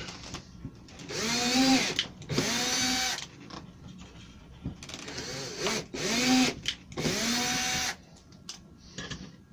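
Cordless drill-driver driving screws through a hinge mounting plate into chipboard: four short motor runs in two pairs, each whining up in pitch as the motor spins up, with quiet handling between.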